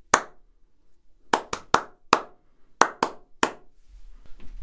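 Hand claps in a small room treated with acoustic panels: about eight sharp claps in an uneven rhythm. Each dies away quickly with little echo, as a clap test of the room's treated acoustics.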